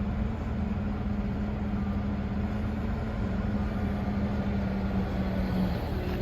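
An engine running steadily, a low rumble with a steady hum that drops away near the end.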